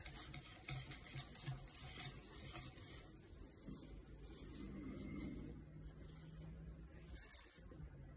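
Faint rustling and rubbing of hands working a paper towel, with crackles from the plastic sheet covering the table, over a low steady hum.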